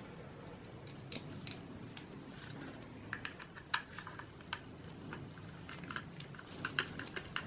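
Faint, irregular small clicks and ticks of screws being turned in by hand with a screwdriver while mounting a 2.5-inch SSD in its drive bracket.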